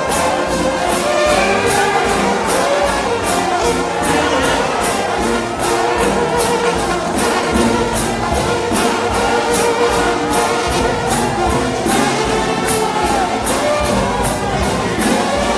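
Trombone shout band playing an up-tempo gospel tune: a massed brass melody over a quick, steady drum and cymbal beat.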